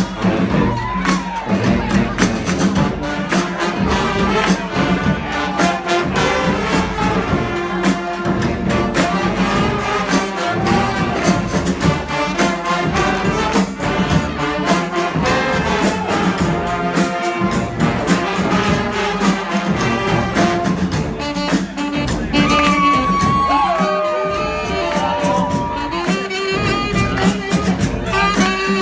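Brass street band playing live: trumpets and trombones over a steady drum beat, with a horn line bending up and down in pitch about two-thirds of the way through.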